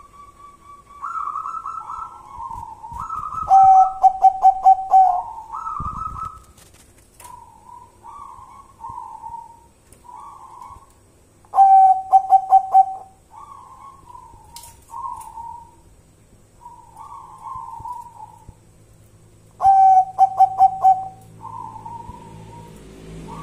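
Zebra dove (perkutut) cooing. Short soft coos run between three loud stuttering song phrases about eight seconds apart, each a held note broken into a quick run of pulses.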